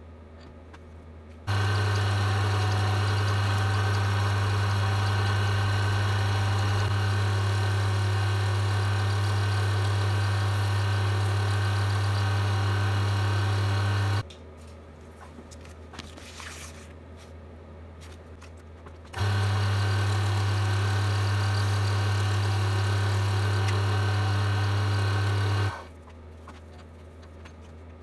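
Electric wood lathe running with a steady motor hum as it spins a pen blank for wet sanding. The hum cuts in about a second and a half in, stops about halfway for some five seconds, runs again, and stops a couple of seconds before the end.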